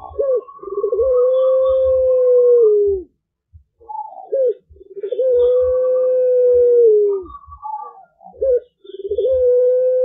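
Young puter pelung, a ringneck dove bred for its long coo, cooing three times about four seconds apart. Each call is a short wavering note and then a long steady coo that drops in pitch at the end. It is a juvenile still learning its call.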